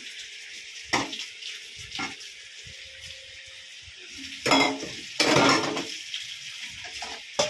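Dishes being washed under a running tap: a steady hiss of water with clinks and knocks of dishware, the loudest clattering about four and a half and five seconds in.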